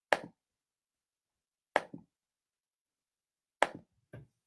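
Four sharp clicks or knocks, irregularly spaced, the last two close together, with dead silence between them: a hand working the computer or bumping the desk.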